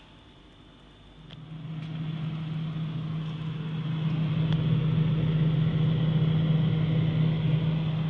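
Samsung refrigerator running with a loud, steady low hum and a whooshing of air, growing louder about a second in and loudest when heard right at the vent slots of the interior back panel.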